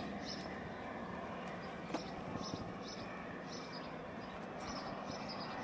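Quiet outdoor ambience with faint footsteps scuffing on a concrete sidewalk, a soft tick about every half second over a steady hiss.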